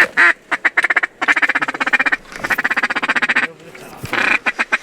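Mallard duck call blown in fast chattering runs, the feeding chuckle used to coax a lone incoming duck. There are three or four bursts of rapid notes with short pauses between them.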